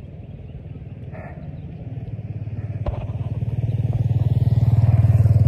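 A motor vehicle's engine running with a low, fast-pulsing note, growing steadily louder through the second half and loudest near the end.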